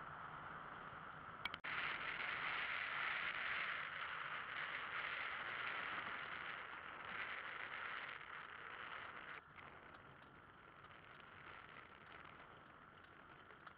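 A velomobile rolling along an asphalt road, heard from a camera mounted on its body: a steady rushing hiss of road and wind noise. A click is followed by a louder stretch about one and a half seconds in, and the level drops again a little after nine seconds.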